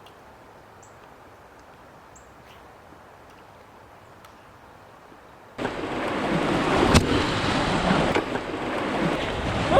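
Faint steady river hiss, then about five and a half seconds in a sudden loud rush of whitewater as the kayak runs the rapids, with one sharp knock about a second later.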